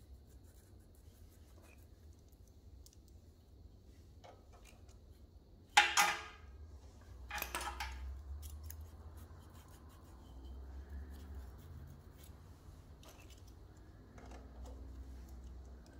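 Small metal hand tools, a feeler gauge and a nut driver, clicking and scraping against the rocker arms and valve adjusters of a Briggs & Stratton overhead-valve engine head while the valve clearances are set. Two sharp metallic clinks, about six and seven and a half seconds in, are the loudest sounds.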